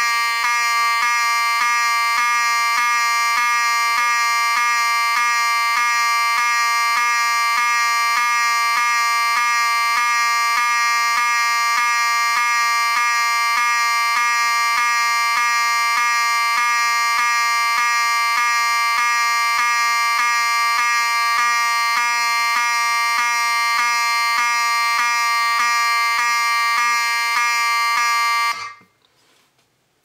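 Wheelock 7002T-24 horn/strobe sounding: a loud, steady electromechanical horn buzz broken by brief regular skips, more than once a second, each where the series-wired strobe flashes and draws power from the horn's coil. It cuts off about 28 seconds in.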